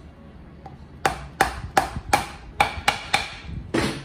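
Hammer striking the pinion shaft of a BMW R1100GS bevel box (final drive), eight sharp metallic knocks in quick succession, about three a second, each with a short ring.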